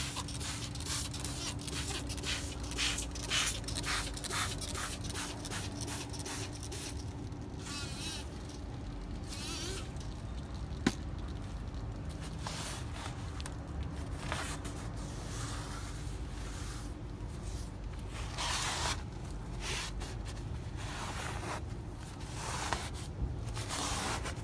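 A hand-held trigger spray bottle squirted over and over in quick succession onto a steel chassis rail for the first several seconds. Then a cloth wipes and rubs along the rail in short spells, with one sharp click about halfway.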